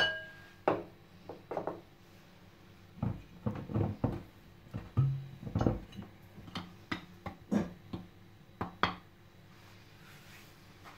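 Metal spoon knocking, tapping and scraping against a ceramic bowl of flour, a run of separate clinks, some with a short ring, that stop about nine seconds in.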